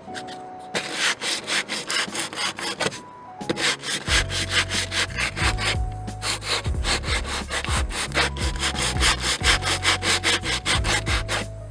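Coarse 60-grit sandpaper rubbed back and forth over weathered teak in quick rasping strokes, stripping the gray surface back toward bare brown wood; the strokes pause briefly twice. Background music plays underneath, with a steady bass coming in about four seconds in.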